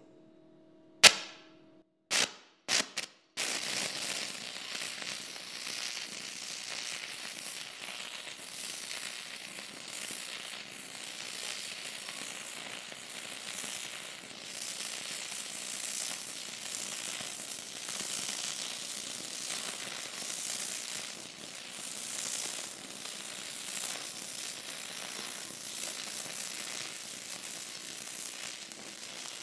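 Stick-welding arc of a Hobart 6010 electrode run on AC: a few short strikes between one and three and a half seconds in as the arc is started, then a steady crackling, sputtering arc with heavy spatter. The arc stays lit on AC.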